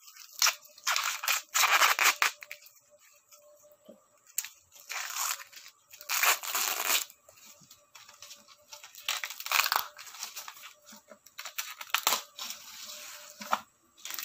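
Green husks being torn off an ear of corn by hand: a series of separate ripping tears, the longest lasting about a second, with short pauses between pulls.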